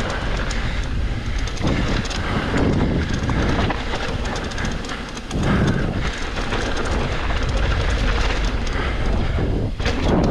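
Mountain bike rattling and clattering over rough trail at speed, with wind rushing on the microphone.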